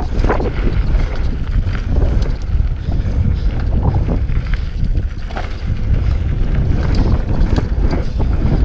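Wind buffeting the microphone and the Scott Voltage 720 mountain bike's tyres rolling fast over a dry dirt trail, a steady low rumble with frequent small clicks and rattles from the bike over bumps.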